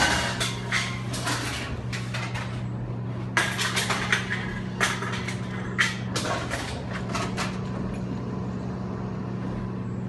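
Bottle-return machine running with a steady motor hum while glass bottles clatter and smash inside it in several bursts of sharp impacts. The breaking stops about two-thirds of the way through, leaving only the hum.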